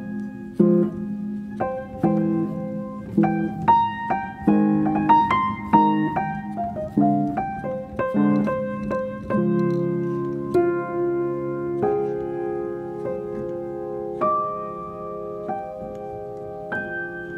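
Background piano music: single notes and chords at an unhurried pace, giving way to longer held chords after the middle.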